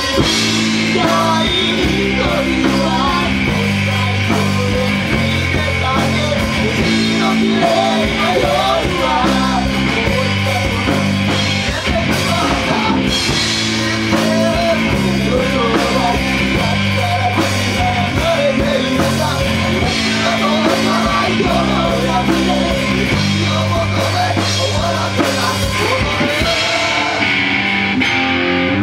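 Rock band playing live: electric guitar, bass guitar and drum kit, with a voice singing over them.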